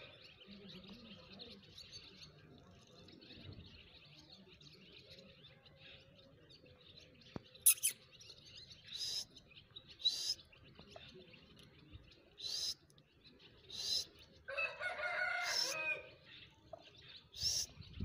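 Indian peacock giving one loud call lasting about a second and a half, about three-quarters of the way through. Short, high bird chirps come every second or two from about halfway, and a single sharp click sounds shortly before them.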